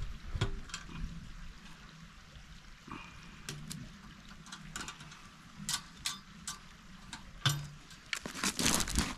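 Plastic packaging and a cardboard box rustling and crinkling as stove parts are unpacked, with scattered small clicks and knocks. A denser burst of crinkling comes near the end as the plastic bag of parts is handled.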